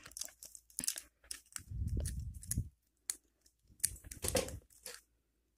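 Hands handling and fitting together the parts of a small broken wireless microphone unit: scattered small clicks and scrapes, with a low rubbing rumble about two seconds in.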